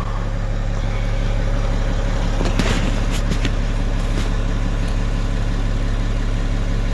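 BMW 730d's N57 three-litre straight-six turbodiesel idling steadily, with a few light clicks near the middle.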